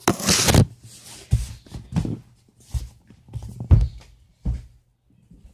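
Handling noise from a phone being carried by someone walking: a loud rub across the microphone at the start, then irregular thumps and rustles at about walking pace.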